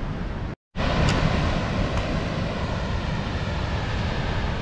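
Wind buffeting the microphone: a steady rushing noise with an uneven low rumble. The sound cuts out completely for a moment about half a second in.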